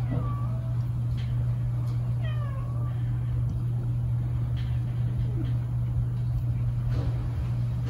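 Domestic cat meowing twice, two short calls about two seconds apart, over a steady low hum.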